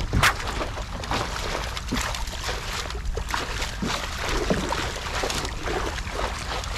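A hooked hiramasa (yellowtail amberjack) thrashing in a landing net at the side of a kayak, splashing water in irregular bursts, over a low rumble of wind on the microphone.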